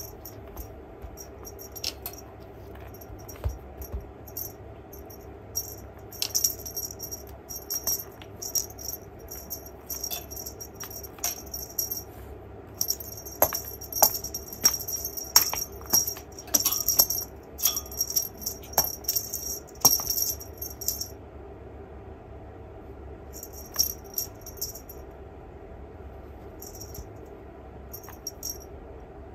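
Jingling and rattling from a cat's wand toy as it is waved and batted, in irregular spells that are thickest in the middle and thin out near the end. A few sharp taps come in between.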